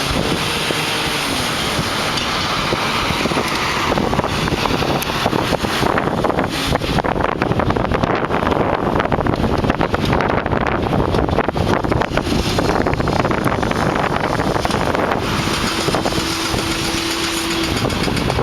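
Heavy demolition machinery running steadily, under loud wind buffeting the microphone. A steady tone is held for about two seconds near the end.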